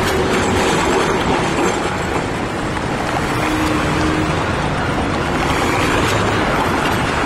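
Busy city-street traffic: cars driving past close by and a tram moving through the intersection, a steady, loud rumble of road noise.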